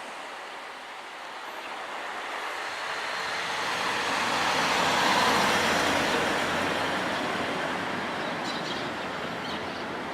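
A vehicle passing by: its noise swells to a peak about halfway through and then fades away.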